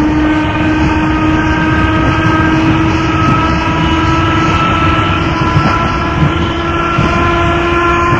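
Class 2EPB electric multiple unit running on the line, its motor whine steady and rising slowly in pitch as the train gathers speed, over a continuous rumble. A couple of short knocks come about two-thirds of the way through.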